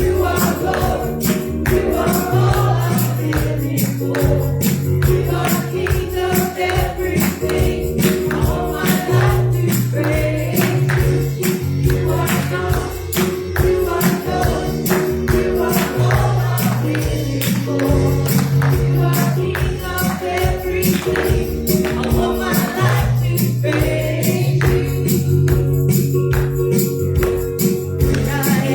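Gospel worship music played live, with a tambourine shaken in a steady rhythm over bass and held chords, and voices singing along.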